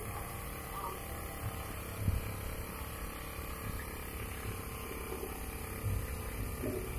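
A steady mechanical hum with two dull low thumps, one about two seconds in and one near the end, and faint muffled voices.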